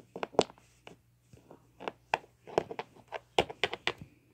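Irregular light taps and clicks, about a dozen, as a small toy figure is handled and tapped along a wooden surface.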